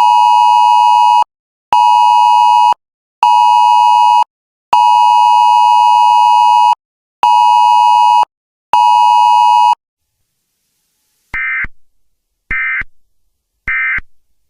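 Synthesized Emergency Alert System tones: a buzzy electronic beep sounding six times in a long-short-short, long-short-short pattern. Then come three short screeching digital data bursts about a second apart, the SAME end-of-message code that closes an EAS alert.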